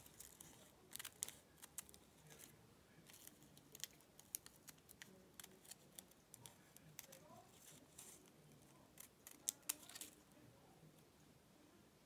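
Faint scattered clicks and crinkles of backing paper being picked at and peeled off a cut fabric piece with the point of small spring-action snips. The clicks bunch up about a second in and again near the ninth to tenth second, then stop.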